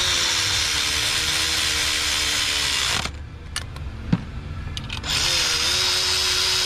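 Cordless power tool spinning a socket to run small nuts down onto the valve cover studs: a steady motor whine for about three seconds, a sharp click about a second later, then a second run starting near the end.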